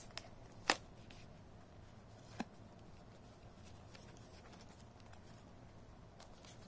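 Cardboard packaging being handled and slid open: faint rustling and scraping of card, with a few sharp clicks of the box flaps, the loudest under a second in and another about two and a half seconds in.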